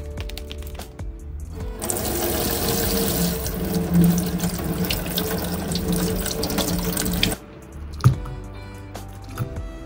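Kitchen tap running and splashing over strawberries held in the hands above a stainless steel sink, starting about two seconds in and shut off suddenly about seven seconds in. Then a single sharp knock as a strawberry is set into a ceramic cup, with soft background music throughout.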